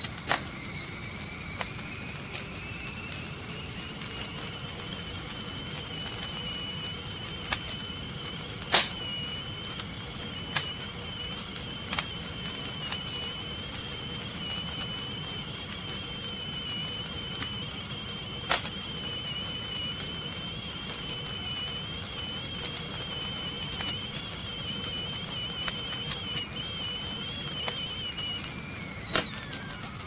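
Tea kettle whistling over a gas burner. The whistle climbs in pitch over the first few seconds, holds with a slight waver, then drops and stops near the end. A low rush from the flame runs underneath, with a few sharp crackles.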